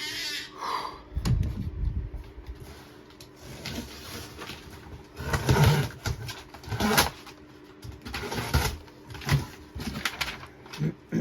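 Cardboard shipping box being opened and unpacked: irregular rustling, scraping and dull thumps of cardboard and packing material.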